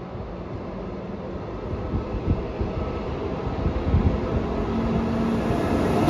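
Electric locomotive hauling a passenger train on its approach, its rumble and wheel noise growing steadily louder, with a steady hum joining near the end.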